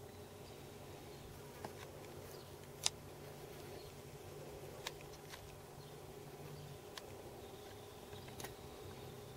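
Low, steady electrical buzz and hum from an electric-vehicle conversion test rig running under a Kelly SepEx controller, its lowest tone dropping away and returning near the end. A few sharp clicks sound over it, the loudest about three seconds in.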